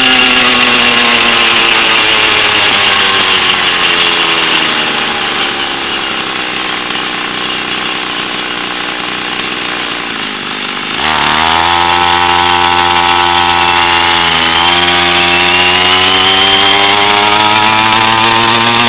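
Small 49cc two-stroke pocket bike engine on a motorized bicycle, heard up close. Its pitch falls steadily for about ten seconds as the engine winds down and the bike slows. About 11 s in the engine revs up sharply, and its pitch climbs as the bike accelerates away.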